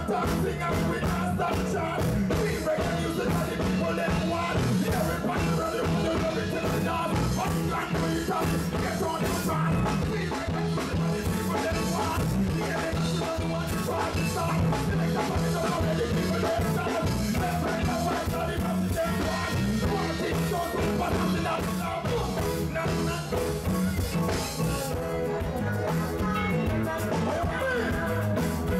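A live reggae band playing with a steady beat.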